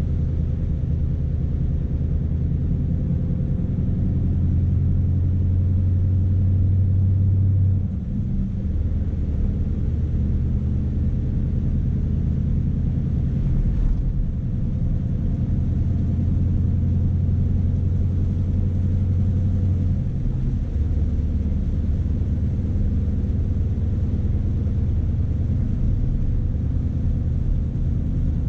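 Scania S520 truck's 16-litre V8 diesel running while driving, heard as a steady low rumble inside the cab. The engine note dips briefly about 8 seconds in and again about 20 seconds in.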